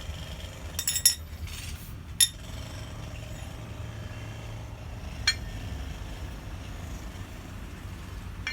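Steel tool parts clinking and knocking as they are handled: a quick cluster of ringing clinks about a second in, then single clinks a little after two seconds and after five seconds, over a steady low background rumble.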